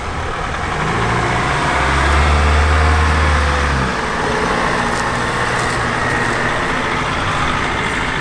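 4x4 off-road vehicle driving, its engine running under a steady wash of tyre and road noise. A deeper engine note swells for about two seconds and then eases back.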